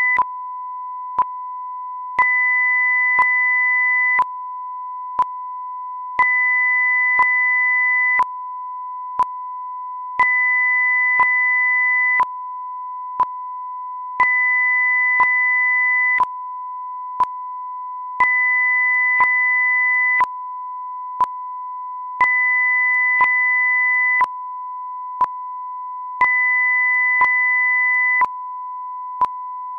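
Steady sine-wave test tone, with a second tone an octave higher switching on for two seconds and off for two seconds, and a short click once a second: an audio-video sync test signal.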